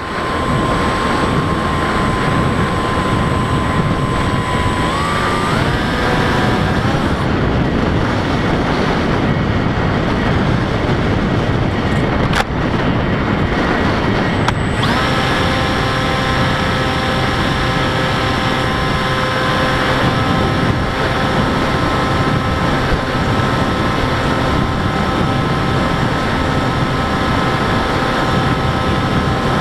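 HK Bixler 3 RC plane's electric motor and propeller whining under heavy wind rush on its onboard camera. The whine steps up in pitch about five seconds in and fades out for several seconds. About fifteen seconds in it comes back strongly at a steady pitch. There is a single click about twelve seconds in.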